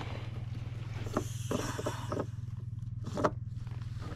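Ski-Doo snowmobile engine idling steadily, with a few light knocks over it, the loudest just past three seconds in.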